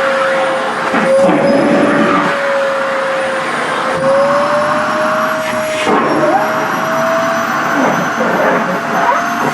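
Sharp EC-KP7F-A vacuum cleaner running with a steady whine that wavers slightly in pitch, with irregular rustling bursts as dress fabric is sucked against the nozzle.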